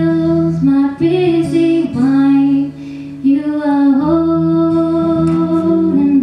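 A girl's voice singing a slow worship song in long held notes, accompanied by strummed acoustic guitar.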